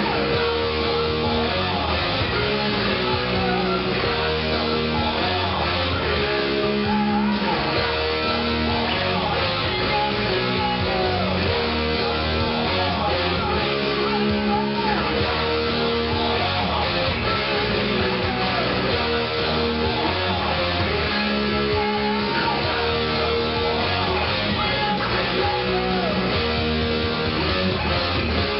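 Rock music: a distorted electric guitar plays a heavy metal riff that repeats about every two seconds, with string bends, over a low bass backing.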